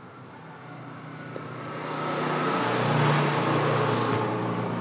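A passing motor vehicle's engine, a steady hum that swells from about a second in and is loudest around three seconds.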